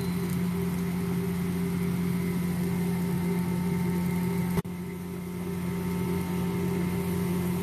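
A steady mechanical hum: a strong low drone with fainter higher tones held at fixed pitch, broken once by a sharp click and a brief dip in level about four and a half seconds in.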